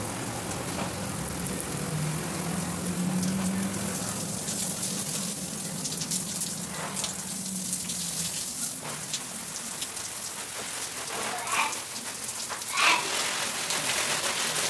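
Garden hose spraying a jet of water onto hanging ferns and potted plants: a steady hiss and patter of water on leaves. A short louder sound cuts in near the end.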